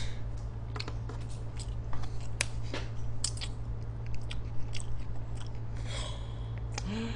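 Scattered small clicks and crackles of disposable wooden chopsticks being unwrapped, split and handled over a box of fried chicken, over a steady low electrical hum.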